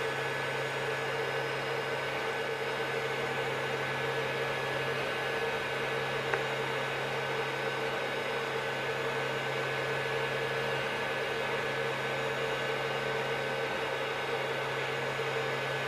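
Creality CR-10 Mini 3D printer running a vase-mode print: a steady whir with a low hum and a few constant tones from its fans and motors, reading about 50 dB on a meter beside it.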